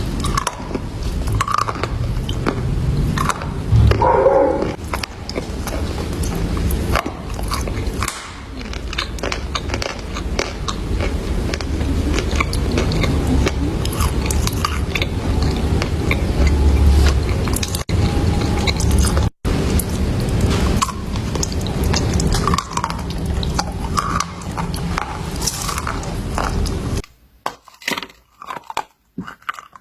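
Chalk being bitten and chewed: dense crunching and crackling over a low rumble. The rumble drops away about 27 seconds in, leaving sparser crunches.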